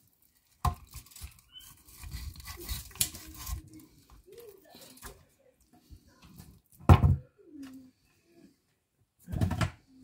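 Perch being filleted by hand on a board: knife scraping and tapping with scattered clatter, a sharp click about a second in, a heavy thump about seven seconds in and another near the end.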